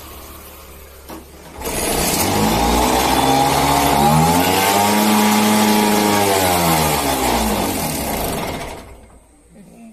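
A 1993 LML Vespa Select's two-stroke engine, on a cold start after twelve years laid up, runs low at first. It is revved up with rising pitch from a couple of seconds in, held high, then let down, and it cuts out near the end.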